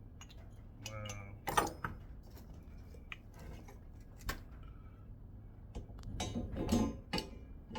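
Scattered sharp clicks and knocks of metal coilover parts and hardware being handled, with a cluster of clattering knocks about six to seven seconds in.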